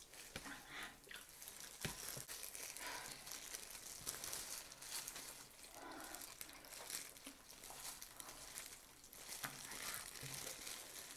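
Close-up eating sounds: disposable plastic gloves crinkling as hands pull apart roast chicken, with chewing and small clicks, a continuous soft crackle.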